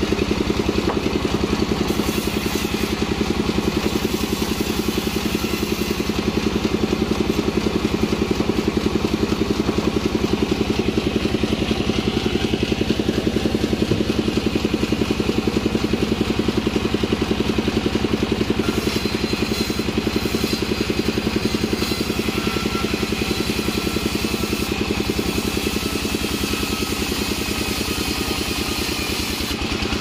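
Stationary single-cylinder diesel engine running at a steady speed with a fast, even firing beat, belt-driving a band sawmill.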